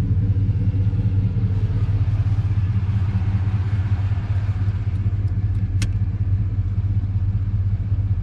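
Motorcycle engine idling steadily, with one sharp click about six seconds in.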